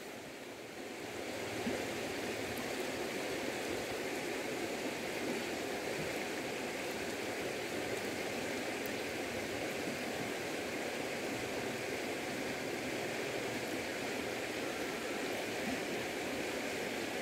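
River water flowing, a steady rushing noise that swells over the first second or two and then holds even.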